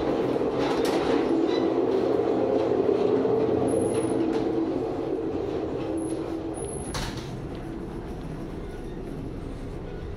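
Alaska Railroad passenger train running, heard from inside the cars: a steady rumble of wheels on rails. It is loud in the vestibule between cars and softer inside the coach from about five seconds in. A single sharp knock comes about seven seconds in.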